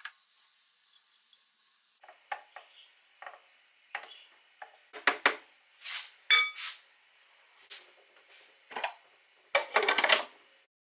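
A spatula scrapes and taps diced beetroot out of a glass bowl into a plastic food processor bowl, with scattered clinks and knocks and one brief ringing glass clink about six seconds in. Near the end comes a louder clatter as the processor's lid and feed tube are fitted.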